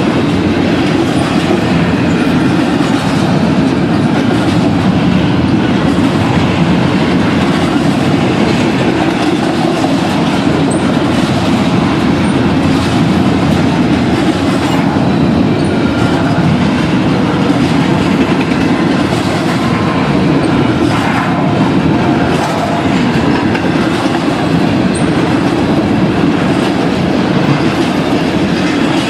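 Double-stack intermodal freight train rolling past, its well cars' wheels running steadily and loudly on the rails.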